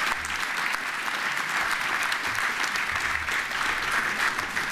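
Audience applauding, many people clapping in a dense, even patter.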